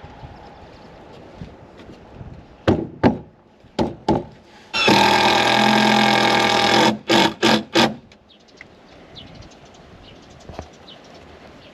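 Handheld power tool started in several short bursts, run steadily for about two seconds, then given three quick short bursts.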